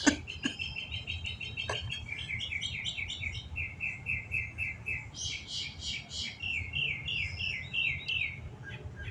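A songbird that mimics other birds' songs, singing a run of quick repeated notes and switching to a new phrase every second or two.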